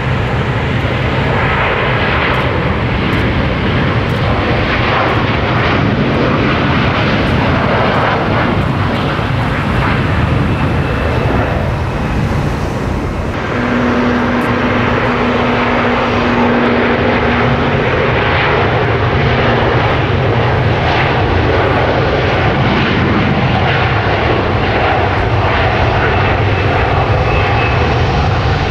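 Twin-engine Airbus A330 airliner's jet engines at takeoff thrust during the takeoff roll, a loud steady roar. About 13 seconds in the roar dips briefly, then carries on, with a short steady hum on top for a few seconds.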